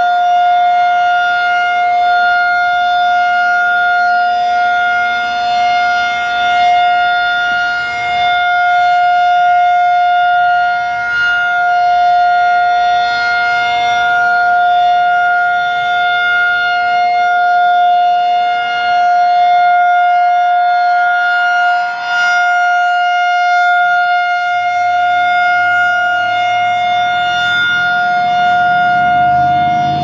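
Federal Signal 2001-SRN electronic siren sounding a steady single-tone full alert, its level swelling and dipping slightly as the rotating horn turns.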